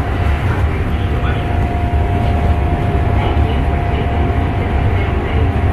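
Train running: a steady low rumble with a constant whine.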